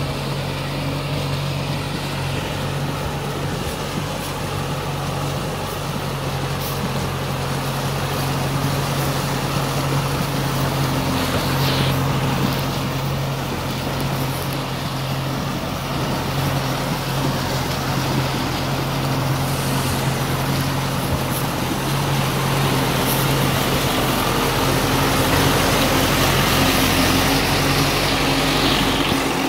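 Kubota M6040SU tractor's four-cylinder diesel engine running steadily under load as the tractor pushes through deep mud, with mud and water churning around its tyres.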